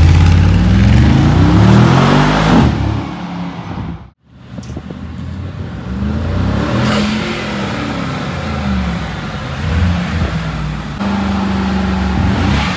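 Mercedes-AMG G63's twin-turbo V8 accelerating hard, its pitch climbing for about three seconds. After a short break the engine pulls again, its pitch rising and falling several times as the car drives on.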